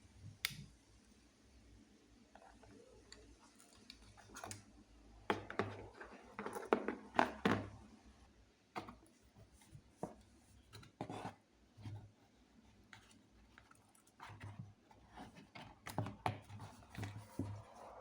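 Cardboard box and packaging being opened and handled by hand: irregular clicks, taps and rustling of card and paper, with a busier stretch about five seconds in and again near the end.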